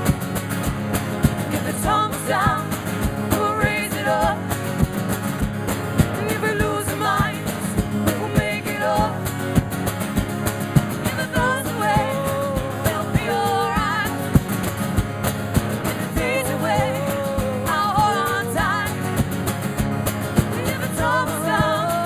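Live band playing a song: two acoustic guitars strummed under sung vocals, with drums keeping a steady beat.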